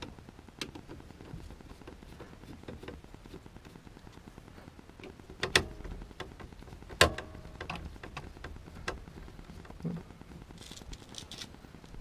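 A screwdriver working at the steering column's switch assembly on a Nissan 240SX gives a few scattered clicks and metallic clinks, one of them ringing briefly, over a low steady background hiss.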